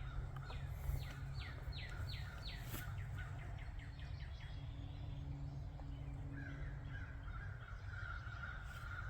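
A songbird singing a quick run of about ten falling whistled notes that speed up, over a low steady rumble.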